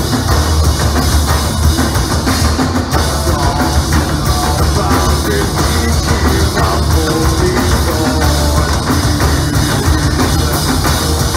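Loud live heavy rock music driven by pounding drums from a stage percussion group, with a heavy, booming low end.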